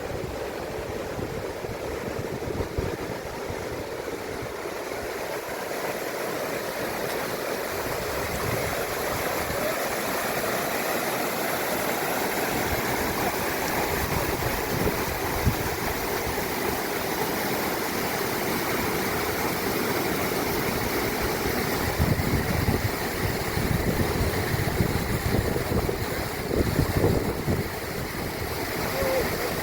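Rushing water from a mountain stream: a steady, even rush that slowly grows louder. Low rumbling bumps come in over the last several seconds.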